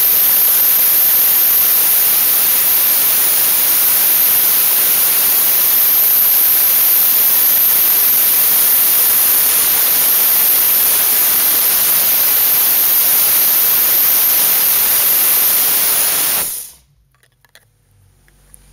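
Dry-ice blasting gun blasting an engine bay: a loud, steady hiss of compressed air and dry ice. The hiss stops abruptly near the end.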